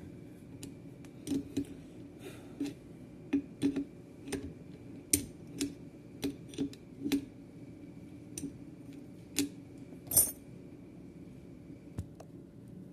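Irregular small metallic clicks and clinks of metal parts and tools being handled during work on an air rifle's regulator, about fifteen in all, the loudest a sharp knock about ten seconds in. A faint steady hum runs underneath.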